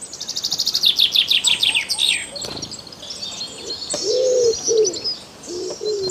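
Birdsong: a fast trill of falling high notes over the first two seconds, then scattered chirping, with a dove cooing a few low notes from about four seconds in.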